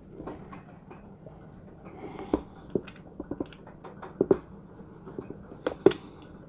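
Hands handling a DJI Phantom 3 Standard remote controller's plastic casing: irregular small clicks and taps as a part is fitted near its handle.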